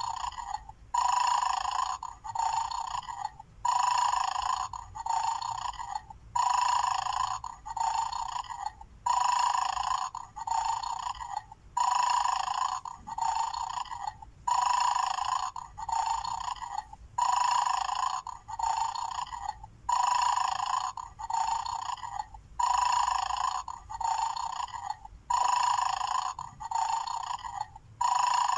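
Battery-operated bulldog bone-guarding toy playing its electronic snoring sound on a loop from its small speaker. Each cycle is a louder snore followed by a softer one, about every three seconds, thin with no low end. This is the toy's sleeping-dog mode, before a bone is taken and it wakes.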